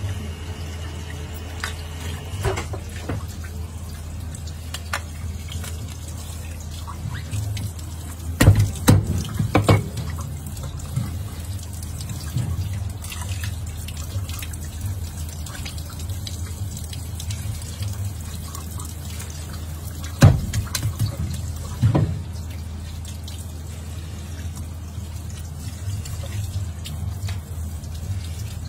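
Tap water running and splashing onto a cutting board and a fish being rinsed and cleaned by hand, over a steady low hum. A cluster of loud knocks about a third of the way in and two more past the middle, as the fish and tools hit the board and sink.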